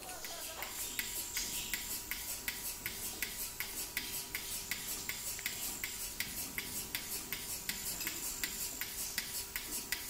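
Bucket-type milking machine running on a buffalo: the pulsator clicks evenly, about three times a second, over the steady hum of the vacuum pump.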